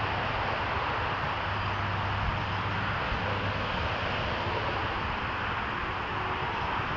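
Steady, even roar of distant motorway traffic, with no single vehicle standing out.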